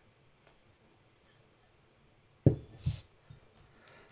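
Kitchenware knocking on a wooden board: quiet at first, then about two and a half seconds in a sharp knock, followed by a smaller one about half a second later.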